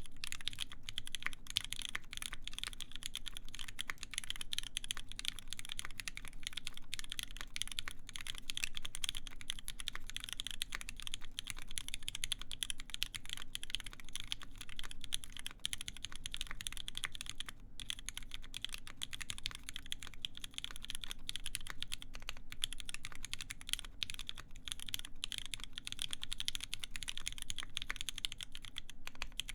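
Continuous fast typing on a mechanical keyboard with lubed vintage Cherry MX Black linear switches on a full brass plate, with a dense run of key strikes and bottom-outs and a brief pause about two-thirds of the way through.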